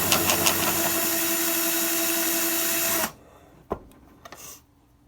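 Drill spinning a Hornady Cam-Lock case trimmer to trim .308 brass: a steady motor whine with a few ticks in the first half second, cutting off sharply about three seconds in. A single knock follows.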